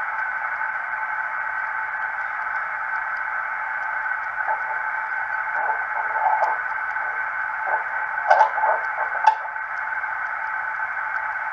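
Homebrew SSB transceiver's receiver audio from the speaker: a steady band-limited hiss of band noise, with a weak, garbled signal and a few clicks of static breaking through between about four and nine seconds in.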